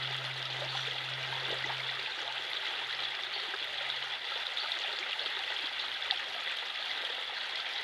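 Running water flowing steadily, an even rushing sound like a stream. A low hum underneath fades away about two seconds in.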